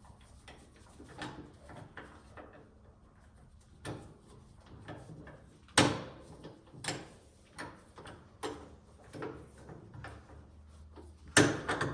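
Metal clamp on a surgical specimen positioner being tightened by hand with its ratcheting handle: a series of irregular clicks and knocks, the two sharpest about six seconds in and near the end.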